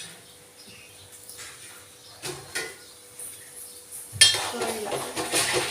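Kitchen pots, dishes and utensils being handled: a few light clinks, then a louder knock about four seconds in followed by a run of clattering.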